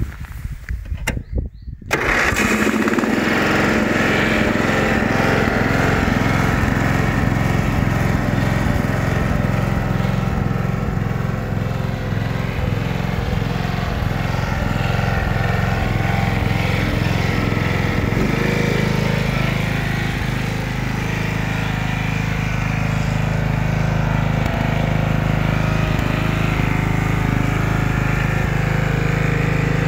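Stiga Park HST ride-on mower's 12.5 hp Briggs & Stratton engine being cranked, catching about two seconds in and then running steadily. The engine note shifts about eighteen seconds in.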